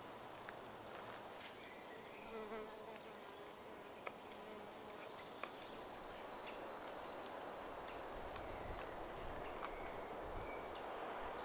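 An insect buzzing close by, its pitch wavering, clearest a couple of seconds in and again faintly near the end, with a few sharp light clicks.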